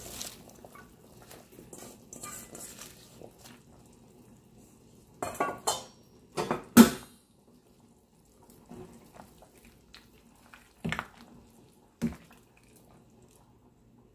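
A metal ladle stirring soup in a stainless-steel stockpot, knocking against the pot: a soft rustle at first, then a run of sharp clanks about five to seven seconds in, the loudest near seven seconds, and two single knocks near the end.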